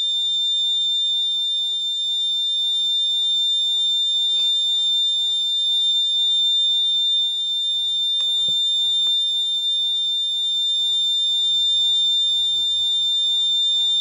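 Alarm buzzer of an Arduino-based vehicle impact-detection circuit sounding one steady high-pitched tone, set off by a detected high-impact accident. A few faint clicks a little past the middle.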